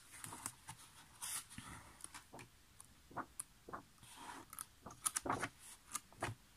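Pages of a paperback craft book being turned and flicked by hand: soft paper rustles and light taps, thickest a little after five seconds in.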